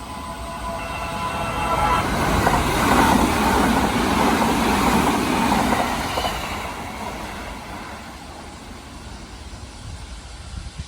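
A Kintetsu Osaka Line train passing close by: the rail noise swells about two seconds in, stays loud for a few seconds, then fades away.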